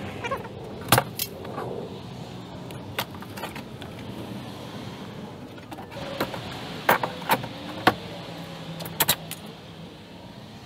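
Old wooden soffit being pulled away from the eave by hand: a handful of sharp cracks and knocks as the boards and nails give, most of them in the second half.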